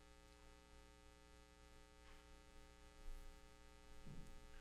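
Near silence with a faint, steady electrical mains hum. There is a soft, brief sound about four seconds in.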